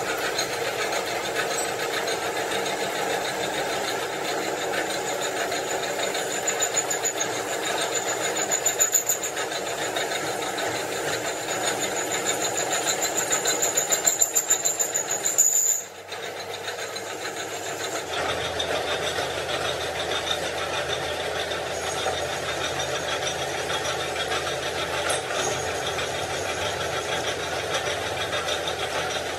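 Workshop machinery running steadily. A high whine comes in pulses and grows louder through the middle, then stops suddenly; after a short drop the machine sound resumes, steadier and with a low hum.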